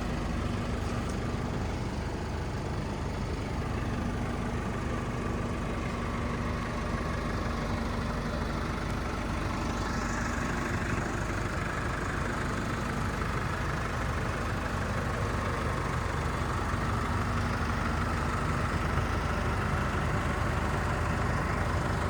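Chevrolet S10 LT pickup running with a steady low rumble and hum, growing slightly louder near the end, with a faint rising whine about ten seconds in. The owner hears an odd noise from the rear of the truck and does not know its cause.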